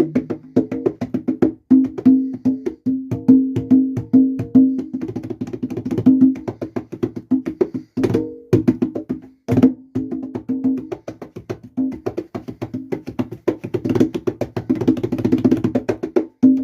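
Conga drums played in a steady salsa rhythm: ringing open tones on two pitches mixed with sharp slaps, with two hard accents midway and a busier run of strokes near the end.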